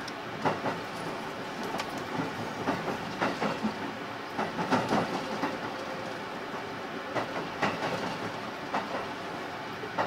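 Cabin of a JR West 281-series limited express gathering speed out of a station: steady running noise with irregular clacks and knocks as the wheels cross rail joints and points, busiest about four to five seconds in.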